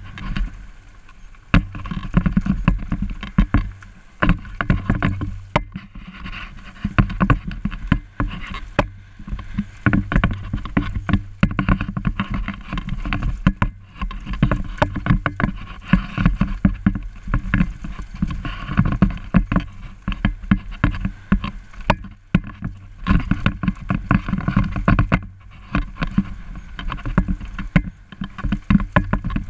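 Mountain bike rattling down a rough, bumpy trail: constant irregular knocks and clatter from the bike over the bumps, over a gusty low rumble of wind on the microphone.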